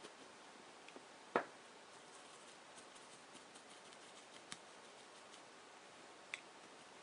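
Quiet room tone with a few small knocks and clicks from handling a vinyl doll head and paintbrush, the sharpest about a second and a half in and two lighter ones later.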